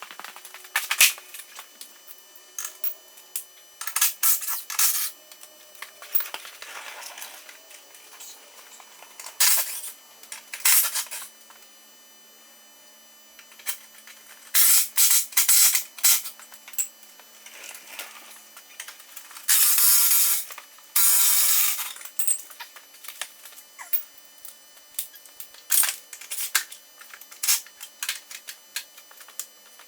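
Hand tools clicking and clanking on steel as bolts are undone on a pickup's front bumper, with repeated sharp metallic clinks and clusters of short loud bursts, the longest near two-thirds of the way through.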